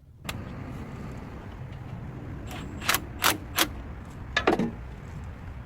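A vehicle engine running steadily, with a handful of short, sharp metallic clicks and knocks about halfway through.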